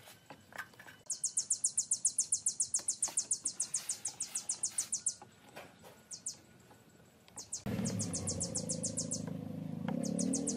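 Rapid, high-pitched chirping trill of about ten even pulses a second from a small animal, breaking off and starting again several times. About two-thirds of the way in, low background music comes in beneath it.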